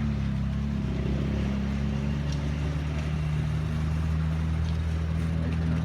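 Vehicle engine running at a steady speed, its pitch holding nearly level apart from a small shift about three seconds in.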